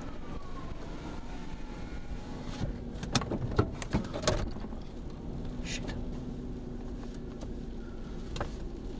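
Steady rumble of a storm-chase vehicle's cabin with the engine running. A few sharp knocks break through about three to four seconds in, and once more near the end.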